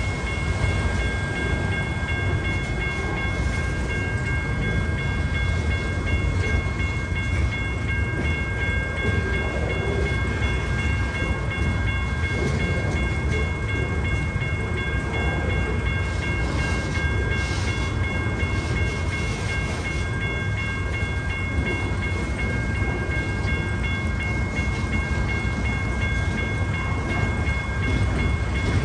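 Freight train rolling by without a break: a steady low rumble with a thin, steady whine over it.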